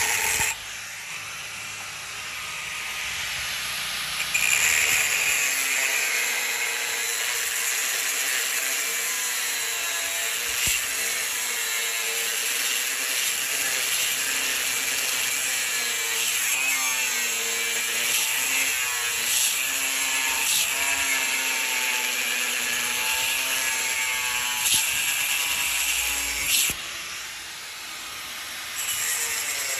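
A power tool cutting steel: a continuous, noisy whine whose pitch wavers. It is quieter for the first few seconds, then louder, and eases off briefly near the end before picking up again.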